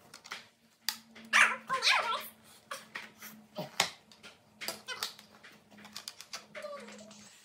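Hard plastic arena rail pieces clicking and knocking as they are handled and pushed together. A loud, high cry lasting about a second comes about a second and a half in.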